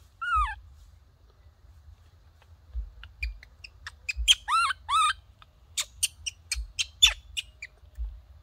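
Baby macaque calling: one high falling coo at the start, three loud arching coos about four seconds in, then a quick run of short shrill squeaks.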